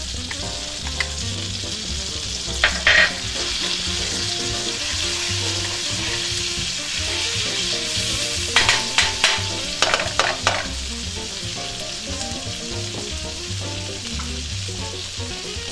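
Minced garlic sizzling in melted butter in a nonstick skillet, steady throughout. A wooden spoon scrapes and stirs it in two short spells, about three seconds in and again from about eight and a half to ten and a half seconds in.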